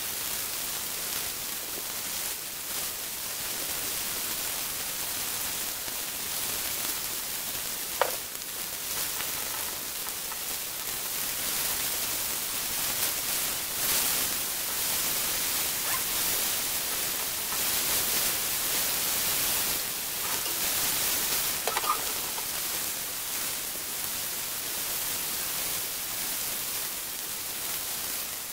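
Sliced mushrooms sizzling in oil in a frying pan as they sear, a steady hiss throughout. Two sharp clinks of the tongs against the pan come about 8 seconds in and again about 22 seconds in.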